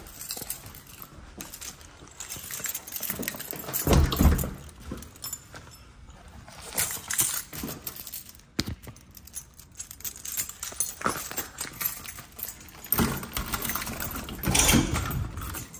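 A bunch of keys jangling and clinking, with scattered knocks and handling thumps, louder about four seconds in and again near the end.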